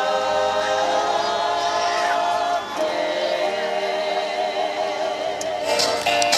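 A small group of voices singing a slow carol in harmony, with long held notes and vibrato. Near the end the singing gives way to a bright, hissing burst of noise.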